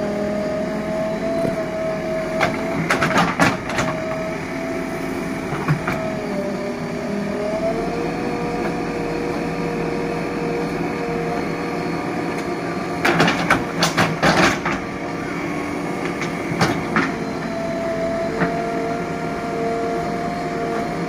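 Diesel JCB 3DX backhoe loader digging a trench, its engine and hydraulics running with a steady whine that drops in pitch about seven seconds in and rises again near the end. The steel bucket scrapes and clatters against stony soil in bursts, a few seconds in and again about two-thirds of the way through.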